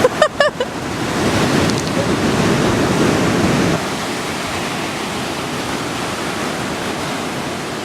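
Ocean surf and strong wind rushing, with wind buffeting the microphone; the noise eases a little under four seconds in.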